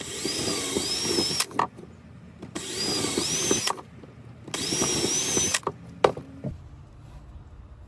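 Power drill with a small bit boring pilot holes into a wooden 2x4 bracket: three runs of about a second each, the motor whine bending in pitch as the bit cuts. A sharp knock follows about six seconds in.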